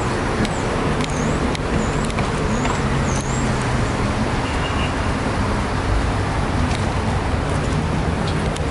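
Steady road traffic noise from an elevated highway. A small bird gives five or so short, high, curved chirps in the first few seconds.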